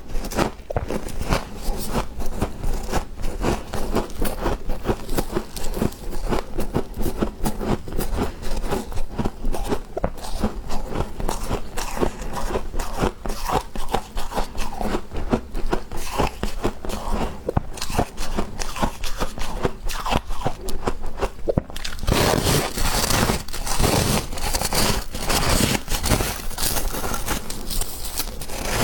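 Freezer frost being bitten and chewed close up: dense, rapid crunching and crackling. It turns into a denser, noisier crackle about two-thirds of the way through.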